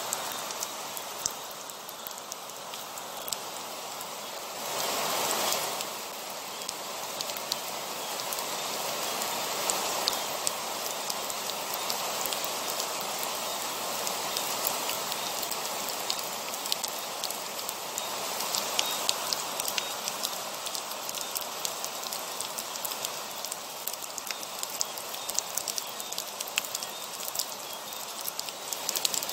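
Heavy rain falling steadily, with many close drops ticking sharply on a surface. A brief louder swell comes about five seconds in.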